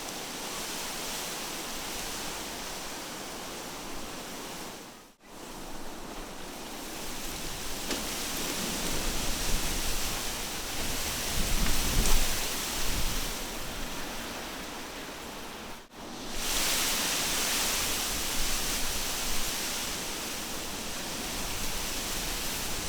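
Wind blowing through trees with a steady rustling hiss, swelling into a stronger gust with low rumble about halfway through. The sound cuts out for a moment twice, about five and sixteen seconds in.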